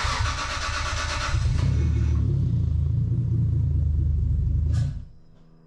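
Toyota 2JZ straight-six in a Mk3 Supra cranking and firing, running for about five seconds and then cutting out. It is starved of fuel: the engine computer reports it is not getting enough fuel, as it is not yet tuned for fuel.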